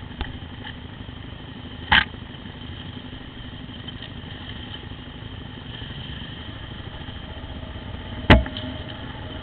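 Motorcycle engine running steadily at low speed over a rough dirt trail, with two sharp knocks, one about two seconds in and a louder one near the end.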